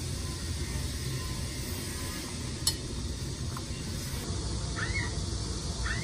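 Steady low rumble and hiss of background noise, with one sharp click about two and a half seconds in.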